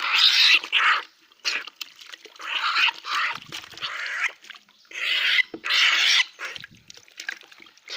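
Black-naped oriole giving a series of harsh, rasping screeches, each lasting up to about a second, as it is held and wetted with water.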